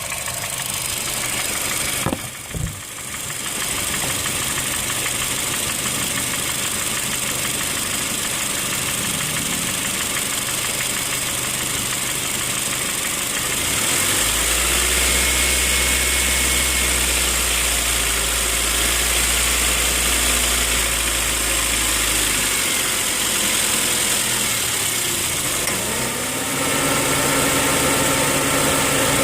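2008 Honda Fit's L15A1 1.5-litre four-cylinder engine running with a knock, which the owner takes for engine knock. The revs rise and fall back about halfway through, with a deeper drone while they are up, and rise again near the end.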